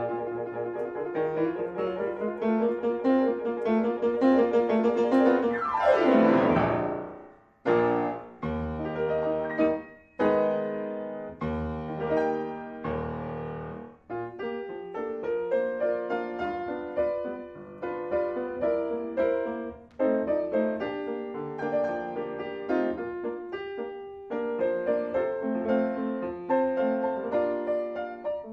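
Solo piano music. About five seconds in, a fast downward sweep runs across the keys. It is followed by a string of short detached chords with brief gaps, and then a steady running tune.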